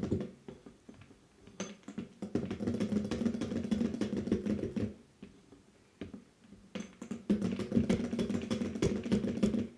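Metal beaters of a hand mixer, switched off and pushed round by hand, clicking and scraping against a glass bowl while they stir thick cocoa cake batter. The rapid clatter comes in two spells with a short pause between them.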